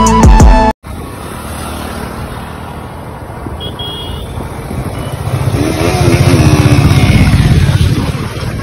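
Background flute music that cuts off abruptly under a second in, then motorcycles riding along a road: engine running with road noise, the low engine note swelling louder about six seconds in before easing off.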